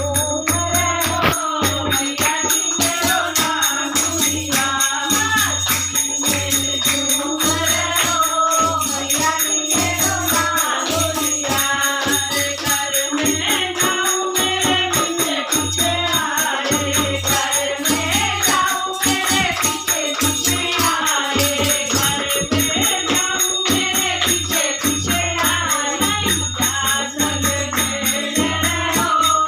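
A group of women singing a Hindi Devi geet (Mata bhajan) together, with hand-clapping and a dholak drum beat.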